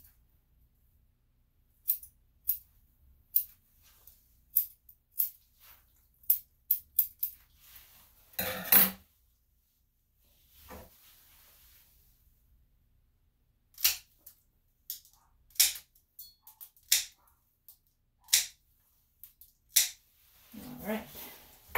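Grooming scissors snipping the hair around a dog's paw: short, sharp snips at irregular intervals. There is a louder, longer rustle about eight and a half seconds in.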